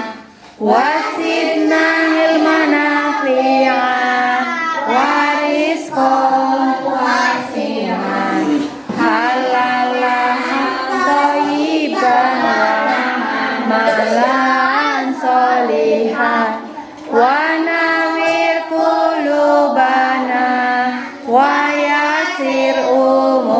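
A group of young children singing an Arabic prayer together in unison, in phrases with short pauses between them.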